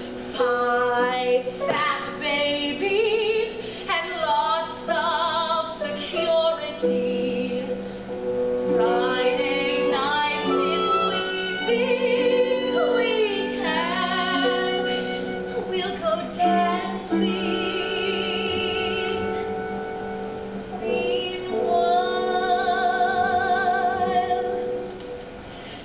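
A woman singing solo over instrumental accompaniment in a stage musical, with vibrato on long held notes, heard from the auditorium.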